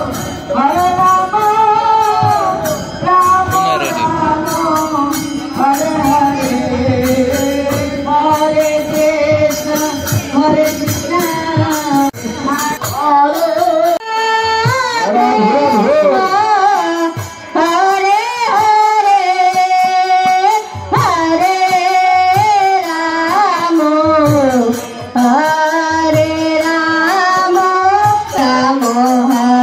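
Live devotional group singing with instrumental accompaniment, sung into microphones. The melody runs on unbroken, and the lower accompaniment thins out about halfway through.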